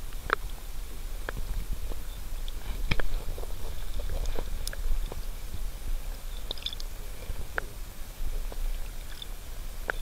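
Muffled underwater sound of river water picked up by a submerged camera: a steady low rumble with scattered sharp clicks and knocks as hands hold a mirror carp in the water.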